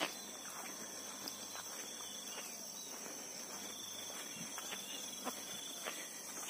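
Steady high-pitched insect chirring, with a few faint wavering trills in the second half. Soft, scattered footsteps on a dirt path.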